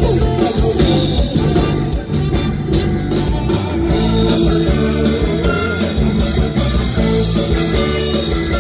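A live band playing an Isan-style song over the concert PA, heard from among the audience: electric guitars, keyboard and drum kit, with no singing prominent in this stretch.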